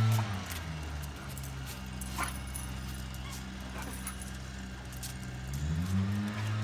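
Dogs whining and whimpering in excited greeting, with a few short yips, under quiet background music that swells back up near the end.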